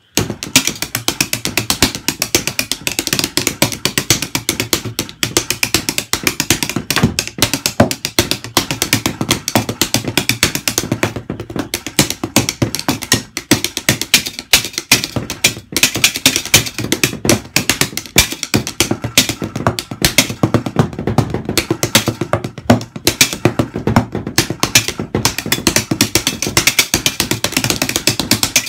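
Drumsticks playing fast, continuous strokes on a makeshift practice kit of paper-wrapped boxes and pads: a dense stream of dry hits, many a second.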